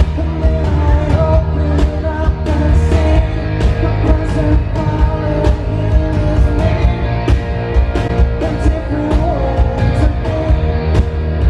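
Live rock band playing a song over an outdoor PA: a male singer with guitar backed by drums, with regular drum hits under the vocal line.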